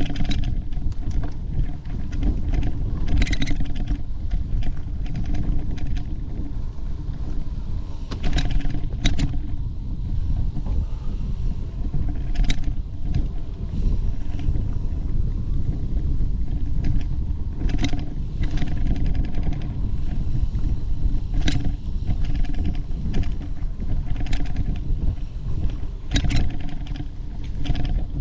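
Bicycle riding along a rocky singletrack trail: a constant low rumble of wind and rolling on the microphone, with sharp knocks and rattles from the bike over bumps every few seconds.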